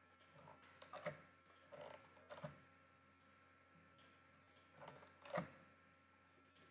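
A few faint, sharp computer-mouse clicks, the clearest about a second in and near the end, over near-silent room tone with a faint steady hum.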